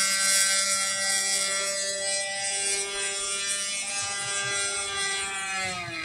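The RC boat's 26cc two-stroke grass-trimmer engine running at high revs as the boat speeds across the water, a steady high-pitched buzz. Its pitch drops near the end.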